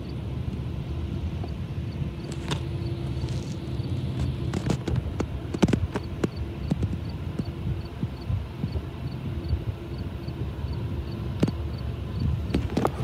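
Steady low rumble of diesel locomotive engines from an unseen freight train, with scattered knocks and clicks that come more often toward the end.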